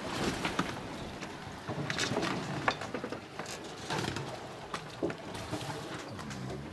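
Boat-on-water ambience: irregular splashing and short knocks of water around a small boat, with a little wind noise.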